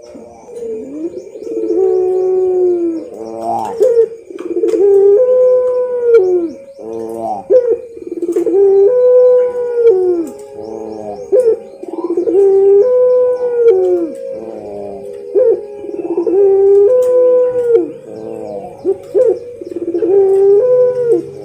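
Puter pelung dove cooing: long, low coos repeated every few seconds, with shorter notes in between.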